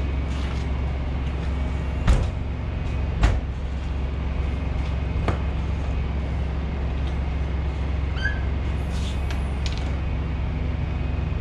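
Metal side compartment doors on a sleeper truck being shut and latched: two sharp knocks about two and three seconds in, then a lighter click. Under them runs a steady low diesel-engine hum.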